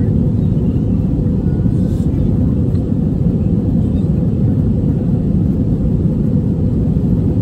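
Steady low rumble of an Airbus A321's jet engines and airflow heard from inside the passenger cabin in flight.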